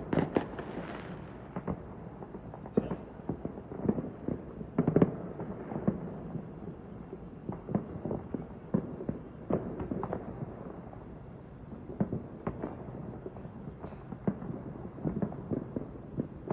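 Fireworks going off: dozens of irregular bangs and pops, some near and sharp, others fainter and farther off, with the loudest cluster about five seconds in.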